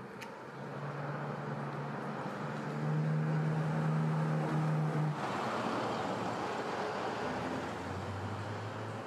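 Street traffic: a motor vehicle's engine hum, steady in pitch and loudest in the middle, stopping abruptly about five seconds in, with a lower engine hum coming in near the end over a steady rush of wind and road noise.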